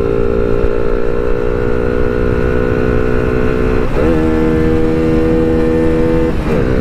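TVS Apache RTR 160 4V single-cylinder motorcycle engine running at a steady cruising speed, its note dipping briefly and picking up again about four seconds in and once more near the end, with wind rushing over the helmet microphone.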